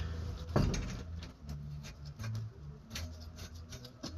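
Light metallic clicks and taps of lug nuts being started by hand on a wheel's studs, with one louder knock about half a second in, over a steady low hum.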